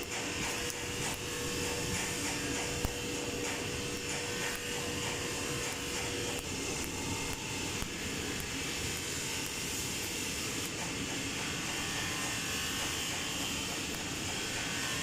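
Welding on exhaust pipework: a steady hiss with fine crackling and a steady hum that stops about six seconds in.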